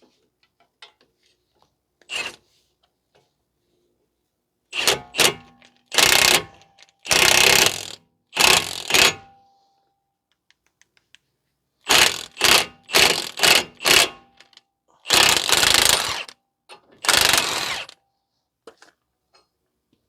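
Impact wrench hammering in short bursts, about ten in two groups, turning a wheel stud installer to pull a new wheel stud into the hub.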